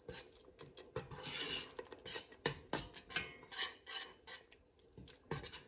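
Metal spoon stirring thick curry paste and coconut milk in a stainless steel pot, scraping along the bottom and sides with irregular scrapes and light knocks.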